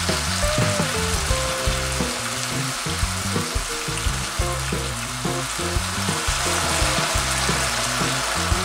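Freshly drained pizzoccheri and savoy cabbage, still wet from the cooking water, sizzling in hot olive oil in a frying pan as they are tossed with a fork. Soft background music plays underneath.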